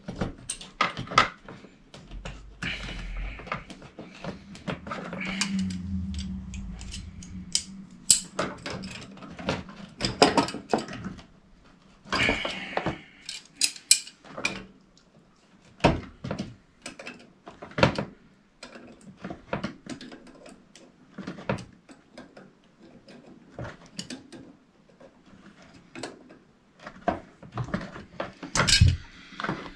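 Metal tools and fittings clinking and knocking against each other and a plastic tool tray as they are handled, in irregular separate knocks. A low steady hum runs for a few seconds near the start.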